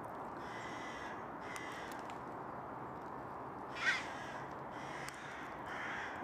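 Crows cawing several times, with the loudest, harshest call about four seconds in, over a steady background hiss.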